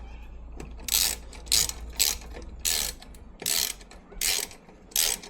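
A ratchet clicking in short bursts, about one stroke every half second to second, as the grub screw holding the exhaust baffle is nipped up.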